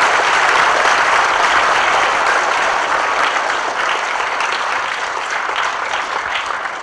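Audience of students applauding in a large auditorium, many hands clapping at once; the applause is fullest at the start and slowly thins out, with a few separate claps near the end.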